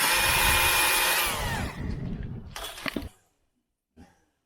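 Electric chainsaw running at full speed, then released after about a second, its motor whine falling away as the chain coasts to a stop. A few knocks follow.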